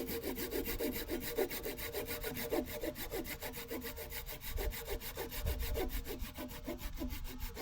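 Hand saw cutting into a log at a marked angle, with steady back-and-forth strokes of about three a second.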